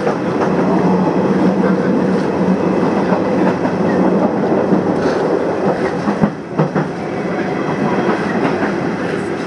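Nishitetsu electric train running at speed, heard from inside the passenger car: a steady rumble with a low hum, and now and then the clack of the wheels over rail joints. There is a brief dip and then a couple of sharper knocks about six and a half seconds in.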